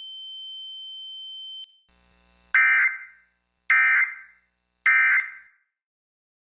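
A steady high electronic tone cuts off about a second and a half in. It is followed by three short, identical bursts of Emergency Alert System data tones about a second apart, each fading away: the SAME end-of-message code that closes an EAS alert.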